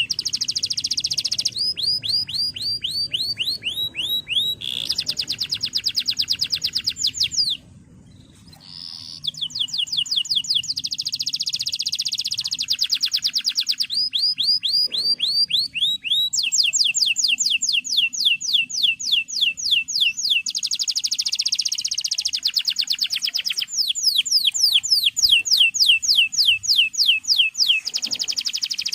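Male domestic canary singing: long, rapid trills of repeated downward-sweeping notes, changing from one trill type to the next, with a short break in the song about eight seconds in.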